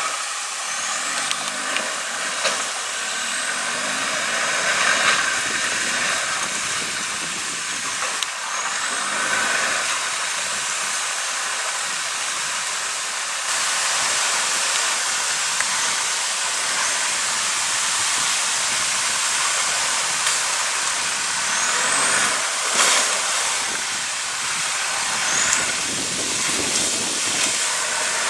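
Water splashing and churning around the tyres and body of a Land Rover Discovery as it wades through a shallow river, a steady hiss with hardly any engine sound.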